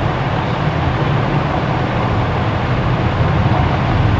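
A steady low hum under a constant hiss of background noise, with no distinct events.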